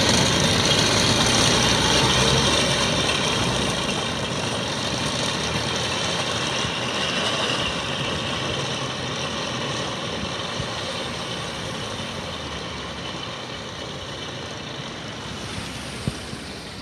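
NSU Kettenkrad half-track's Opel four-cylinder engine running as the vehicle drives away on pavement, its sound fading steadily over the whole stretch.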